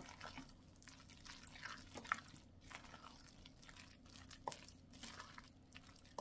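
Faint wet squelching of chopped green garlic being stirred into gochujang with a spoon in a stainless steel bowl, with a few light clicks.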